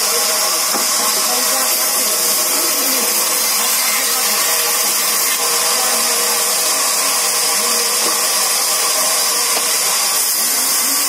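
Large vertical band saw of a sawmill running, a loud steady whir with a strong hiss, as a squared log is fed along its blade.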